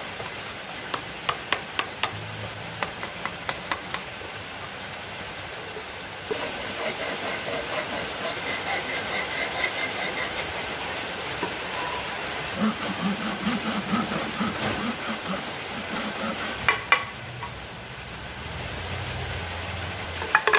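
Tools working wood: a run of sharp clicks and taps, then about ten seconds of steady rhythmic rasping strokes, with a few louder knocks near the end.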